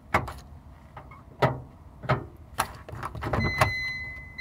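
Inside a car: a run of sharp clicks and knocks, then about three seconds in the car's warning chime starts, a steady high-pitched tone that holds.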